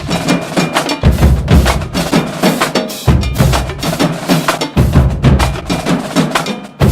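Percussion-heavy music: a fast, busy drum beat with deep bass hits about every two seconds.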